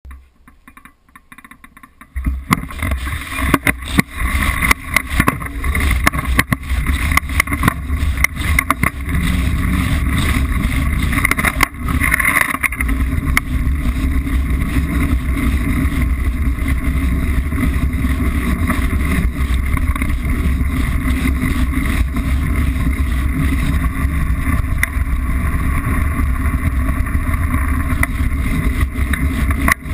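Wind buffeting the microphone and the rattle of a Liteville 301 mountain bike rolling down a rough dirt trail. It starts about two seconds in and then runs as a steady deep rumble, with many sharp knocks and clatters from bumps, thickest in the first ten seconds.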